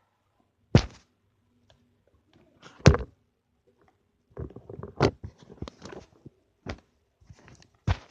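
A series of sharp thumps and knocks, about five loud ones spread across several seconds, with a run of smaller clicks and rattles between about four and six seconds in.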